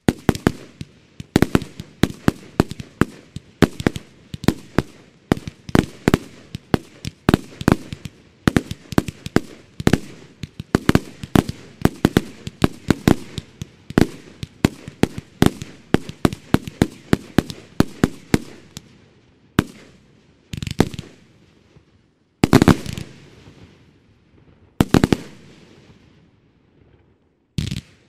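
Category F2 consumer firework batteries firing: a rapid run of shots and bursting bangs, several a second, for about twenty seconds, then thinning to a handful of louder single bangs with pauses between them.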